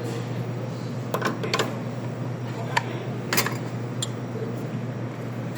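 A handful of sharp clicks and light taps, about five, over a steady low hum from the espresso machine.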